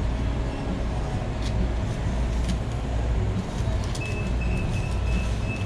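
Steady low rumble of indoor machinery, with a high electronic beep repeating in short, evenly spaced pulses from about four seconds in.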